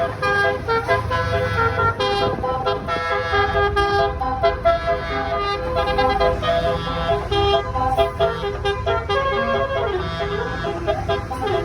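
A tour bus's basuri telolet horn, the roof-mounted trumpet kind, playing a fast melodic tune: loud notes that jump to a new pitch several times a second. A low rumble runs underneath.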